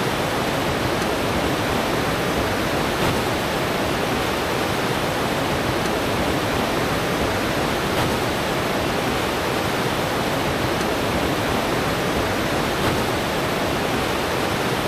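Whitewater rapid rushing steadily around large boulders.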